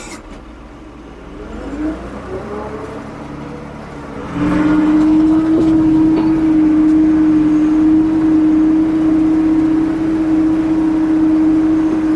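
Ford 550 backhoe's diesel engine speeding up, then from about four seconds in running loud and steady at high speed.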